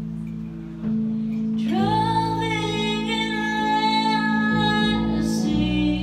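Slow R&B ballad played live: sustained keyboard chords with bass underneath. About one and a half seconds in, a female singer comes in and holds one long note for about three seconds.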